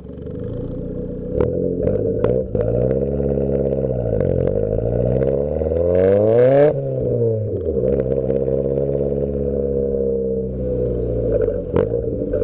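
Toyota Starlet Glanza V's turbocharged 1.3-litre four-cylinder engine, muffler deleted, revving: the revs dip, then climb steeply to a peak about seven seconds in and drop away sharply before settling. A few sharp exhaust pops crack over it.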